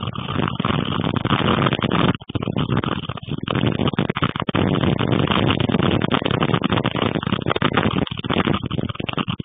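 Strong storm wind buffeting the microphone: a loud, rough rushing that gusts up and down, dropping out briefly about two seconds in and again at three and a half seconds.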